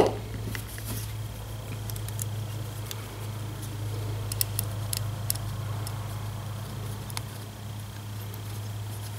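Small screws and metal distributor parts being handled and fitted, giving a sharp click at the start and scattered light clicks and ticks after it, over a steady low hum.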